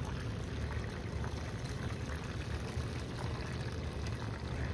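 Pumped water running steadily in a thin sheet over a Miller table, a flat fine-gold recovery table, with a steady low hum underneath.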